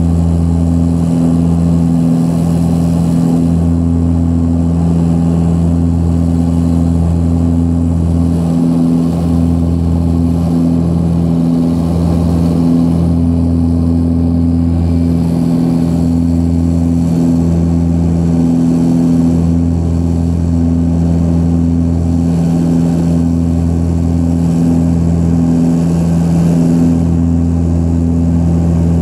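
Antonov An-24RV's Ivchenko AI-24 turboprop engines and propellers at climb power, heard inside the cabin: a loud, steady propeller drone whose lowest tone swells and fades every second or two.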